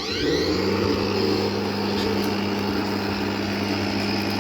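Battery-powered lawn mower's electric motor spinning up with a rising whine, then running at a steady speed with a high whine over a low hum.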